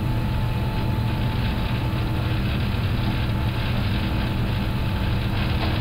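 Airbus A350-1000 on its takeoff roll, heard from the flight deck: a steady, even rumble of the airliner's Rolls-Royce Trent XWB engines at takeoff thrust and its wheels running on the runway, with a faint steady tone above it.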